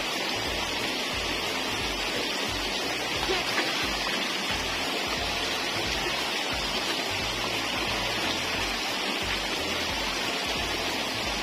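Steady rushing of water gushing from a pump's outflow into a shallow, muddy ditch.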